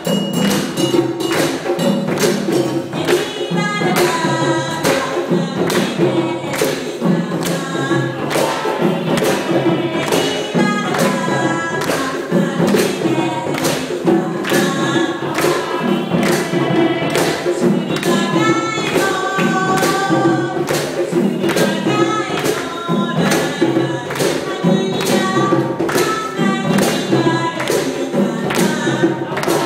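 West African-style hand drums, djembes among them, playing a fast, driving rhythm, with singing over the drums from about three seconds in.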